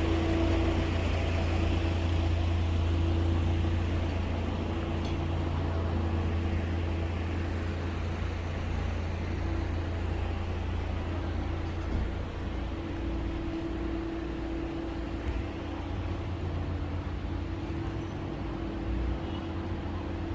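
Motor vehicle engine running steadily, a constant low drone with a steady hum above it.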